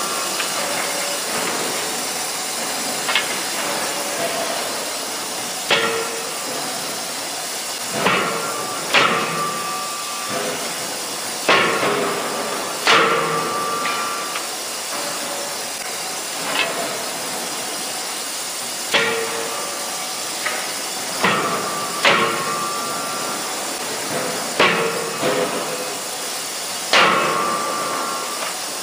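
CNC fully hydraulic die forging hammer (CFM C88K, 63 kJ) striking in a die, with blows at irregular one-to-three-second intervals, often in close pairs. Each blow is followed by a short metallic ring, over a steady hiss.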